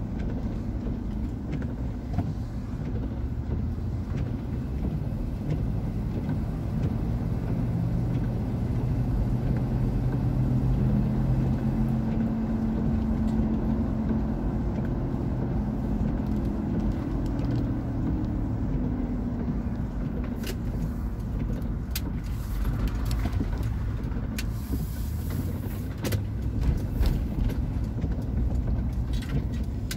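Inside a Toyota Camry SE driving on wet streets: a steady low engine and road rumble. The engine tone grows louder in the middle, then falls away, and a few sharp clicks and knocks come in the later part.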